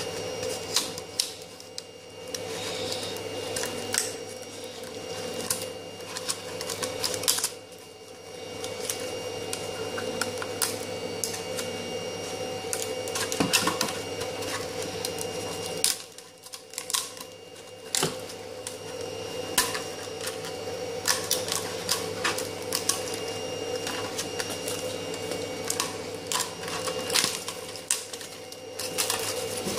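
Thin strips of 3D-printed ABS plastic being peeled and snapped off a printed part, making irregular crackling clicks and snaps over a steady hum.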